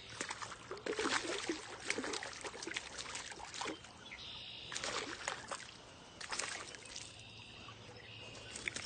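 A hooked chain pickerel thrashing and splashing at the water's surface on the line, in irregular bursts of splashing.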